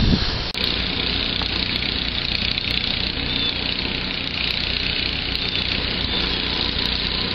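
Snowblower engine running steadily with a low, even hum.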